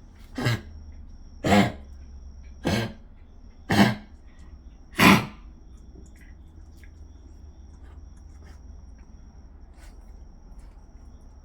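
Five harsh coughs about a second apart, the last one the loudest.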